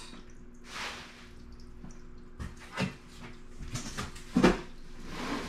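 A box being opened and clothes rummaged through by hand: rustling and scraping with scattered knocks, and one sharper thump about four and a half seconds in.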